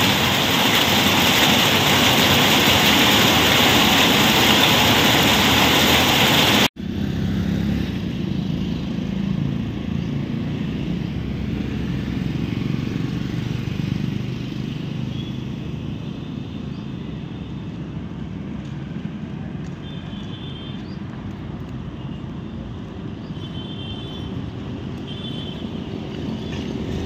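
Heavy rain falling steadily as a loud, even hiss. It cuts off abruptly about seven seconds in, giving way to a quieter street with a low rumble of passing motor vehicles and a few short high tones.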